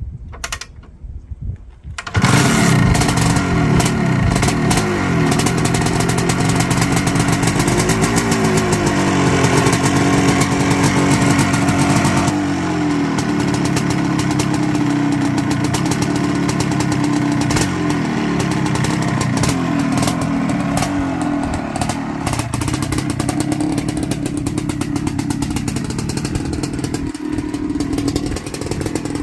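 ATK 406 two-stroke dirt bike engine catching about two seconds in and running loud, its pitch revving up and down for several seconds before settling to a steadier, slightly quieter run.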